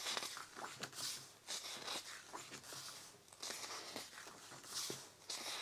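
Faint rustling and swishing of paper as the pages of a mediabook's bound booklet are turned by hand, one after another, with small paper ticks in between.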